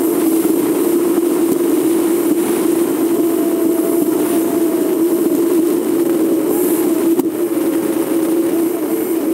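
Steady road and engine noise of a vehicle driving at cruising speed: a constant droning hum with hiss over it.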